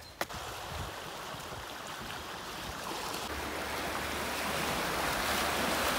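Small waves washing onto a pebble beach: a steady surf hiss that grows louder toward the end, with a low rumble of wind on the microphone in the second half.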